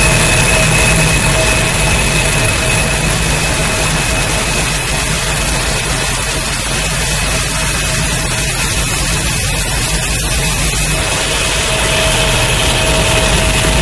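Electronically amplified and processed body sounds, the muscle tension and pulsing blood of a performer holding up heavy weights, picked up by Xth Sense biosensors and played through loudspeakers: a loud, dense low drone with a rough, noisy grain and a few steady high tones. It thins a little in the middle and swells again near the end.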